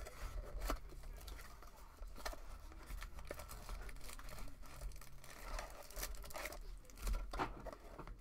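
Sports card packaging being torn open and crinkled by hand: scattered rustles and sharp clicks over a faint low hum.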